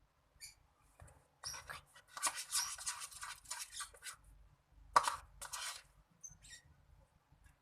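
Slime mixture being stirred in a bowl as slime activator is worked in. The stirring comes as scratchy scraping strokes in several bursts, with a sharp knock about five seconds in.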